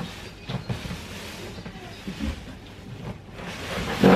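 Rustling and knocking as a new microwave is unpacked from its box and packaging, with a loud thump near the end.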